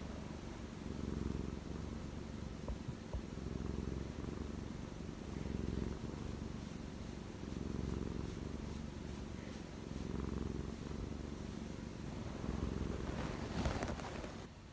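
Domestic cat purring steadily and close up while being stroked, the low purr swelling and easing with each breath about every two seconds. A brief louder noise comes near the end.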